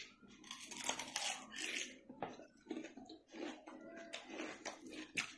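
Biting into and chewing a piece of raw cucumber: a sharp bite at the start, then irregular crisp crunches and wet mouth sounds.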